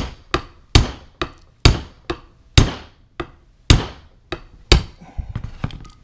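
Hammer tapping a retaining pin into a shotgun's carrier latch: about a dozen sharp metallic strikes, roughly two a second, each ringing briefly, softer toward the end.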